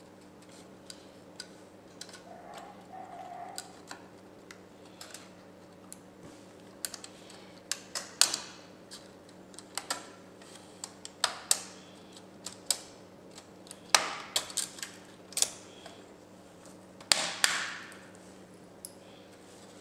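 Hands handling the plastic chassis and cables of a partly disassembled HP Pavilion laptop: scattered clicks, taps and rustles, with a few louder clacks.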